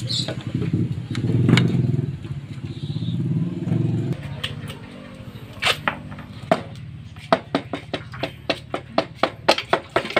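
A rubber-headed mallet knocking repeatedly on the Suzuki Raider 150's crankcase side cover to break it loose, starting about halfway through as separate sharp taps that quicken to about three a second. Before that, an engine runs steadily for about four seconds and then stops abruptly.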